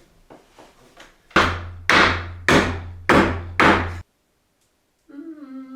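Five hammer blows on wood in quick succession, about two a second, each ringing off briefly; then the sound cuts off abruptly.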